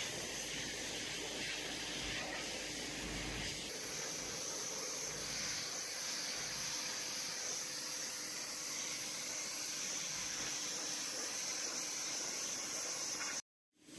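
Pressure washer spraying a catamaran's hull, a steady hiss of high-pressure water on the fibreglass, blasting off marine growth. A faint steady tone runs underneath. It cuts off suddenly near the end.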